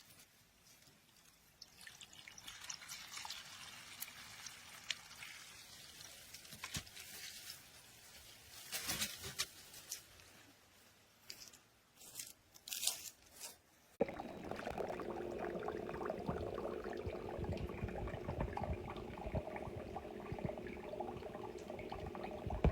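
Water trickling and splashing with scattered clicks as a small submersible fountain pump is handled in water. About two-thirds of the way in, a steady water gurgle starts suddenly, the pump running and pushing water up through its spout, and it cuts off abruptly at the end.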